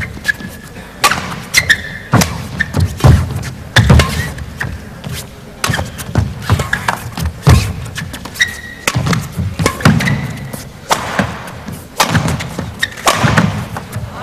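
Badminton singles rally: repeated sharp racket strikes on the shuttlecock mixed with players' foot stamps and thuds on the court mat, at an uneven pace of about one to two a second, with brief high squeaks from shoes.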